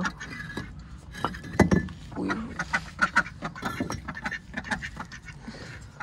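Loose bricks knocking and clinking as they are shifted by hand, a series of sharp irregular knocks with the loudest about a second and a half in. Ducks quack softly among them.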